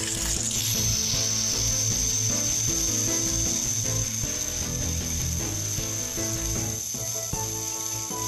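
A battery-powered Plarail toy train's motor and gearbox whirring with a steady high whine, its wheels spinning freely with the engine overturned off the track. It starts with a brief clatter of the plastic trains crashing.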